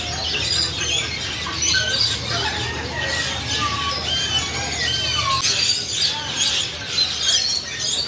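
A chorus of many caged parrots and small birds chirping and squawking together, with short whistled calls rising and falling over the chatter. A low hum runs under it and fades out about five and a half seconds in.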